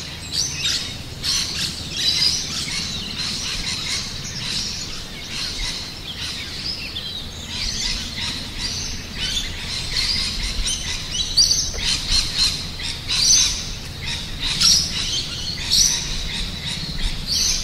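Birds chirping and singing, a dense run of short overlapping calls and trills with no pause.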